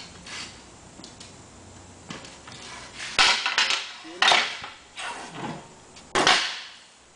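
Trojan folding metal sawhorses being opened and stood up on a concrete floor: a series of sharp metal clanks and knocks as the legs are spread and set down, the loudest about three seconds in, about four seconds in and near the end, where a wooden board is laid across the tops.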